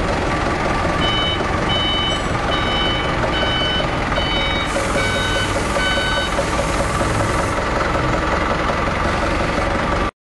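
Forklift engine running steadily while its reversing alarm gives short high beeps, about two a second, from about a second in until about six seconds in. The sound cuts off abruptly just before the end.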